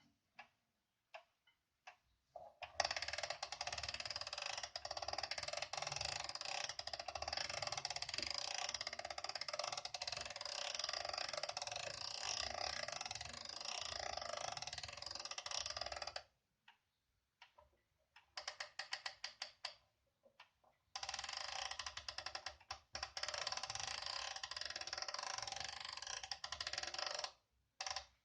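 Winding ratchet of an 1880s Concordia Vienna regulator's weight-driven movement, clicking rapidly as the weight is wound up. Two long runs of fast clicking with a short, sparser patch between.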